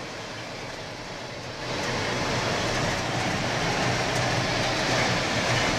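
Steady rushing of storm water, louder from about two seconds in.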